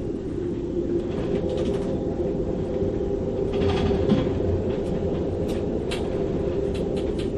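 Storm wind with gusts over 35 knots in a sailboat's rigging: a steady low roar with a howling tone, and scattered sharp ticks that come more often near the end.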